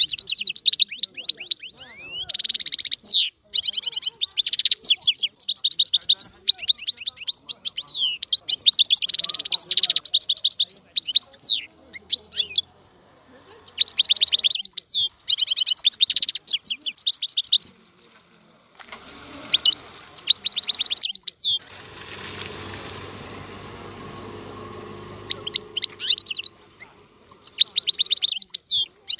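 European goldfinch singing: fast twittering phrases of quick, high repeated notes and trills, broken by short pauses. About two-thirds of the way through, the song stops for several seconds and a quieter, even noise takes its place before the singing starts again.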